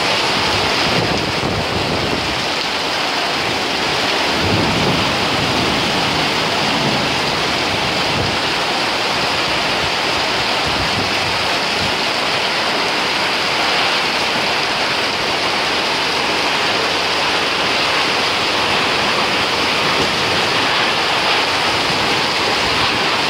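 Torrential rain pouring down: a steady, loud hiss of a heavy downpour.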